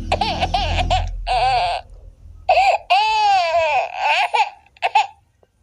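High-pitched baby-girl crying: quick sobbing cries at first, then one long falling wail about three seconds in, then a few short sobs before it stops.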